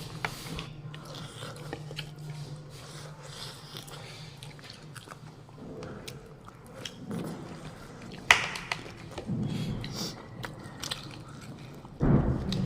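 A person biting and chewing food, boiled chicken, close to the microphone, with small clicks of utensils or dishes and one sharper click about eight seconds in, over a steady low hum.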